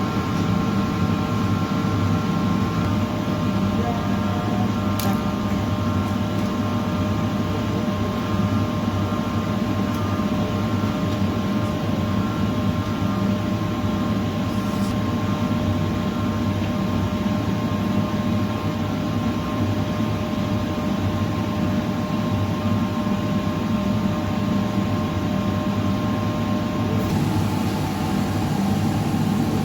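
Arc-welding machine running with a steady electrical hum and fan drone, holding an even level throughout.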